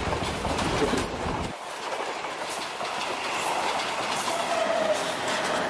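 Passenger train carriages rushing past close by, the wheels clattering over the rail joints. A deep rumble drops away about a second and a half in, and a faint wheel squeal sounds near the end.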